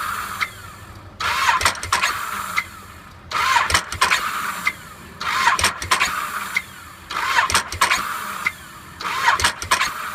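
Ducati 1198 L-twin being cranked on its electric starter in repeated short attempts, about every two seconds, without catching: the bike is failing to start.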